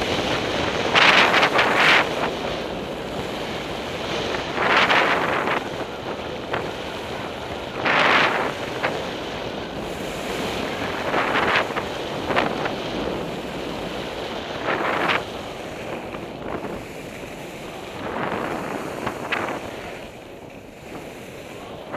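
Skis carving and scraping through soft spring snow in a string of turns, a swish about every three seconds, over a steady rush of wind on a helmet-mounted camera's microphone.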